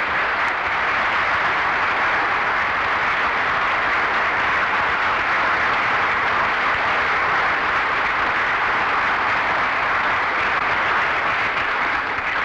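Audience applauding: a loud, steady round of applause.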